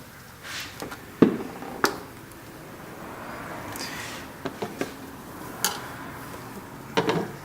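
A few sharp clicks and knocks with some rubbing between them, as a metal hose clamp and a silicone intake elbow are handled and fitted.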